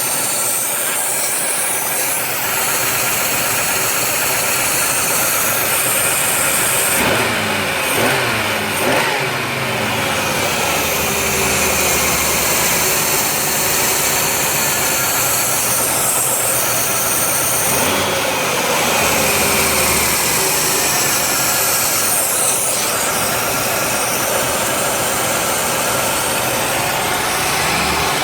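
1990 Oldsmobile Cutlass Supreme engine running with a steady hiss over it, revved up and back down twice, about 7 and 18 seconds in. The hiss is the sign of a vacuum leak.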